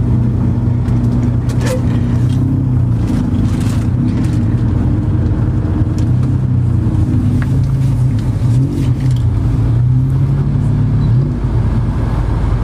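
Steady low engine drone of a road vehicle, wavering slightly in pitch, with a few faint clicks over it.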